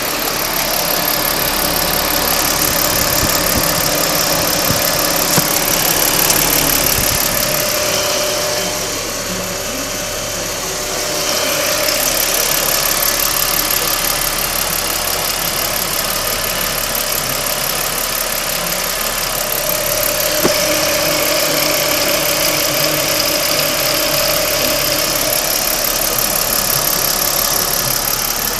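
Ford Falcon FG XT's 4.0-litre straight-six engine idling steadily with a ticking from the right-hand side of the engine, a tick whose cause the owner does not know. The level dips briefly about ten seconds in.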